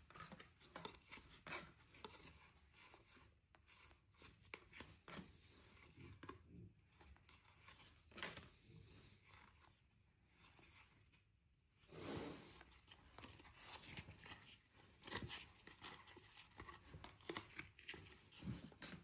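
Faint rustling and flicking of a stack of Topps baseball cards being thumbed through by hand, card sliding over card, with a slightly louder rustle about twelve seconds in.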